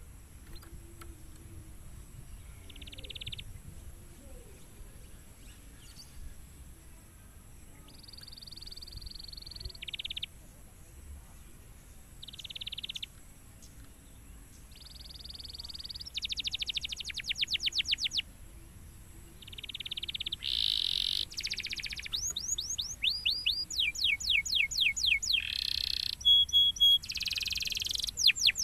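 Domestic canary singing. Short, separated phrases give way about halfway through to a full song of fast trills of quickly repeated down-slurred notes, which grow louder and denser toward the end.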